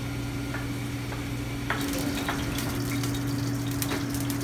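Food sizzling in frying pans over lit burners of a commercial gas range, with a steady low machinery hum underneath; the crackling grows denser about two seconds in.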